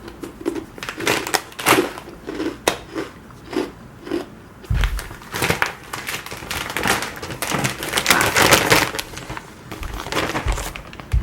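Snack packaging being handled, with crinkling and crackling. It starts as short strokes about twice a second and becomes denser and louder about halfway through.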